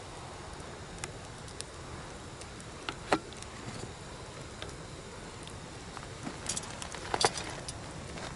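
Wood bonfire burning: a steady low rush with scattered sharp crackles and pops, the loudest pop about three seconds in and a cluster of pops around seven seconds.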